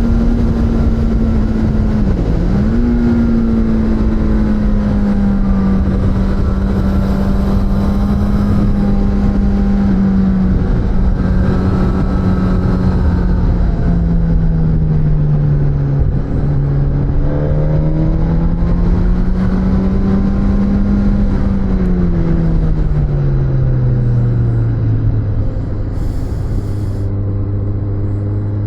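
Suzuki GSX-S1000's inline-four engine heard onboard while riding, over steady wind rush. Its note holds, drops briefly and comes back about two seconds in, sags and rises again in the middle, then falls away near the end and settles into a steady lower note as the bike slows.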